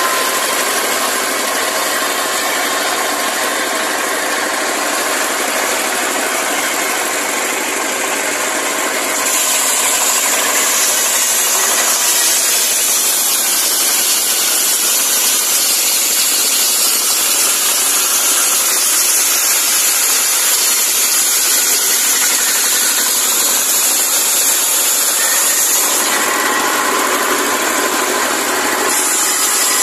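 A 24 hp diesel engine running steadily, driving a circular saw that rips palm logs into planks. The whine and hiss of the machinery change abruptly about 9 and 26 seconds in.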